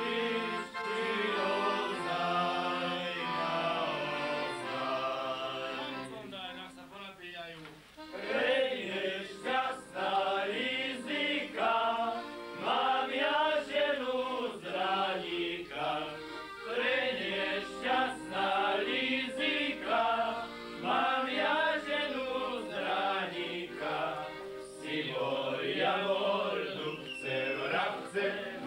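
A group of voices sings a Slovak folk song in held chords. About seven seconds in it falls away briefly, and rhythmic folk dance music with singing takes over.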